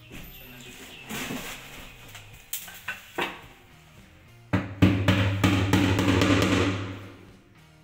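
Hammer tapping a small fitting into a cabinet's side panel, a few separate knocks and then a quick run of blows, over background music with a drum beat.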